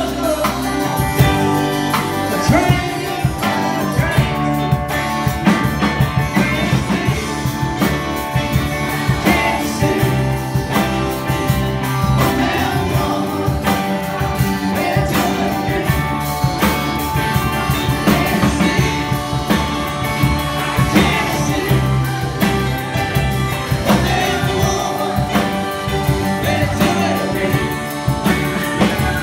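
Live band playing a rock song, with a woman singing lead over acoustic guitar, electric guitars, bass and a drum kit.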